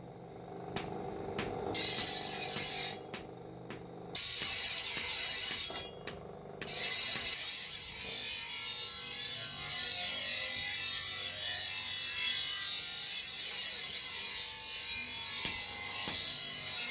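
Harsh, steady scraping noise of metal work on a grass-cutter machine blade, coming in short bursts at first and running without a break from about six and a half seconds in. Pitched tones sit under it in the first few seconds.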